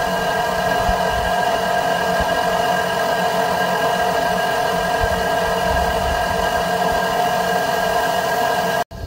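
Harris micro hydro turbine running steadily inside its wooden enclosure box, fed at close to 70 psi of water pressure: an even hum with several held tones over a hiss. It cuts off suddenly near the end.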